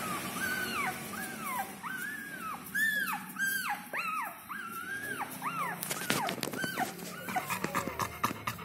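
Newborn puppies squeaking and whimpering: a run of short high cries, each rising and falling in pitch, about two a second. In the last few seconds the cries thin out and a string of small clicks and rustles comes in.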